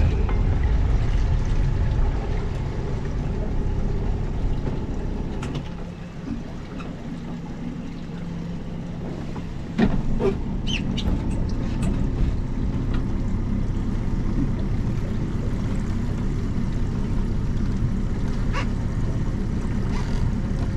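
Outboard motor running steadily at trolling speed, a low rumble with water noise. A sharp knock comes about ten seconds in, after which the rumble is louder again.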